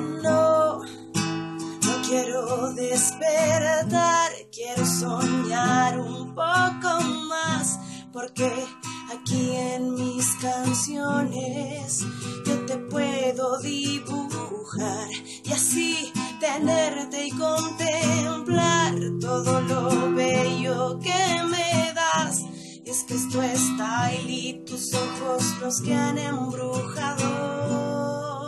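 Instrumental break of a ballad: acoustic guitar playing chords under a lead melody line that wavers with vibrato.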